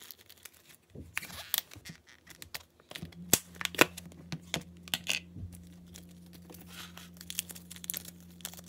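Slime being handled and stretched, giving irregular sticky clicks and crackles, loudest around the middle.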